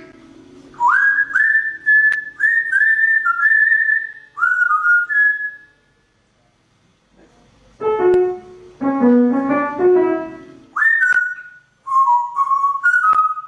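A pet bird whistling a run of clear notes with rising swoops. About eight seconds in, a short instrumental melody answers it, and then the bird whistles again.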